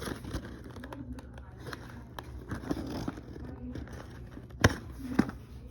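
Toy packaging being handled and opened: rustling and scattered small clicks, with two sharp knocks about half a second apart near the end.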